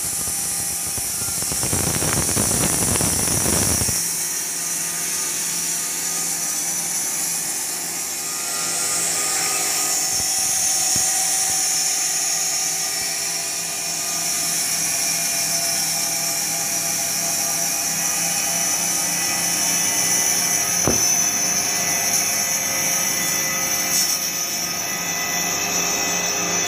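Trakmet bandsaw mill running, its band blade sawing through a jackfruit (kos) log: a steady, high-pitched mechanical hiss, with a louder, deeper stretch of cutting noise about two seconds in.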